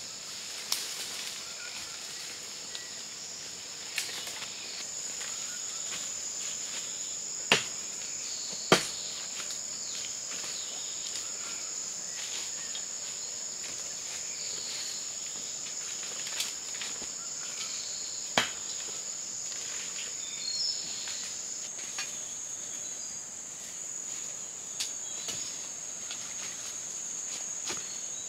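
Steady high-pitched drone of forest insects, with a few sharp snaps of twigs and sticks as people step through dry leaf litter; the loudest snaps come at about seven and a half, nine and eighteen seconds in.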